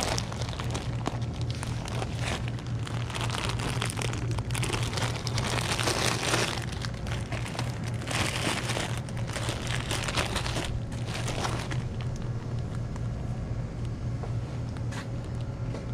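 Plastic soda bottle crinkling and rustling as it is handled and pressed against the body-worn camera, in irregular bursts that die down near the end, over a steady low hum.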